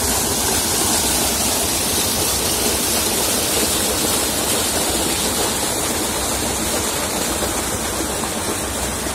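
Irrigation water gushing from a diesel-driven 6-inch pump's outlet pipe and churning down a channel: a steady rushing splash that eases slightly near the end.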